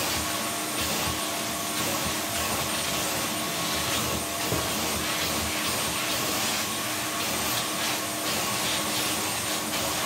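Parkside PWD 30 B1 1500-watt wet and dry vacuum cleaner running steadily with a constant whine. Its soft-area nozzle is worked back and forth over fabric couch cushions, sucking up scattered debris.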